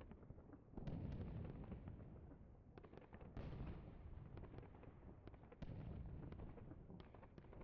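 Battle sound effects: three faint explosions, about a second in, midway and two-thirds through, each tailing off into a low rumble, with scattered sharp cracks of gunfire throughout.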